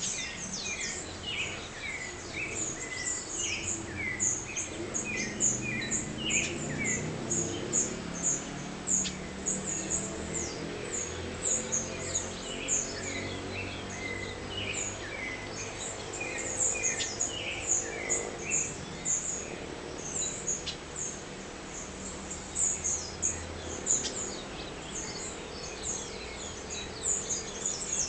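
Dawn chorus: many birds chirping and calling at once in quick, overlapping short notes, over a low steady hum that swells in the middle of the passage.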